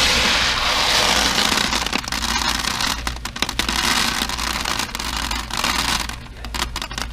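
Dried popcorn kernels rattling against each other and a plastic tub as a hand scoops and stirs through them, a dense crackle that starts suddenly. About six seconds in it thins to a scatter of single clicks as kernels drop from the hand back into the tub.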